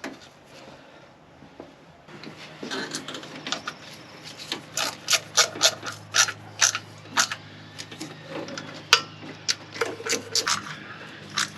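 Irregular sharp metal clicks, about two or three a second from a couple of seconds in, as bolts are fitted into an engine's timing chain cover, over a faint steady hum.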